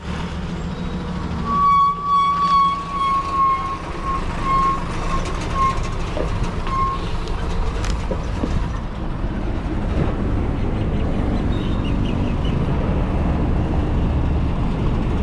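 A bus horn sounds one long note and then a string of shorter toots that trail off, over the steady low rumble of the Khaptad Deluxe coach's engine as it drives past, the rumble growing louder in the second half.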